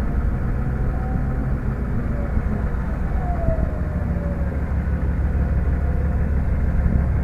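A bogged four-wheel drive's engine running with a steady low rumble, joined by a whine that slowly rises and falls in pitch as its winch pulls under load against an anchor buried in the sand.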